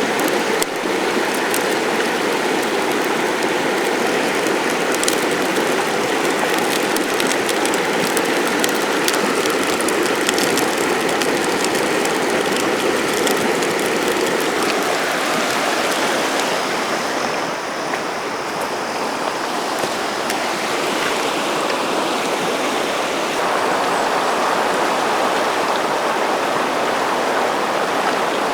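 River water rushing steadily, with many small sharp crackles over the first half. The rushing changes in tone about halfway through and again near the end.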